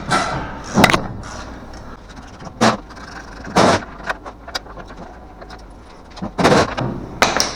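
Metal tools and parts clinking and clanking in a handful of separate knocks, with lighter ticks between them, during suspension disassembly.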